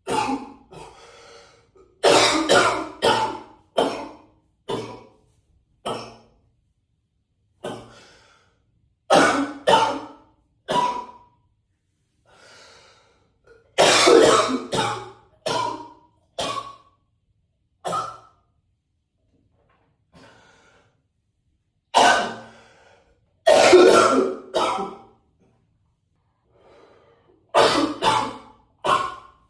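A man coughing in an echoing bathroom, in repeated fits of one to four coughs with pauses of a few seconds between fits.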